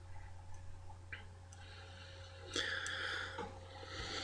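Quiet room tone with a steady electrical hum, a few faint ticks in the first second and a half, and a short hiss about two and a half seconds in.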